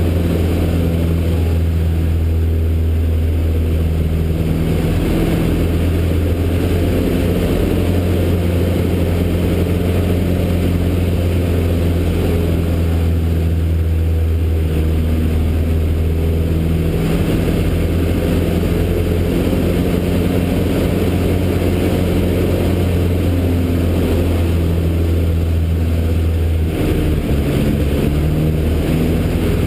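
Citabria 7ECA's 115 hp four-cylinder aero engine and propeller running under power, heard from inside the cockpit as a steady loud drone. Its note changes about halfway through and again near the end as power and attitude shift through the aerobatic manoeuvres.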